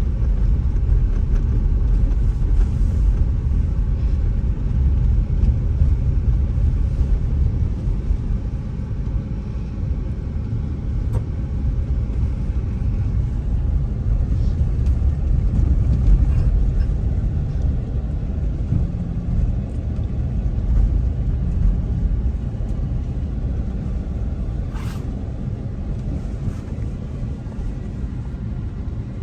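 Steady low rumble of a car driving on the road, engine and road noise heard from inside the moving car.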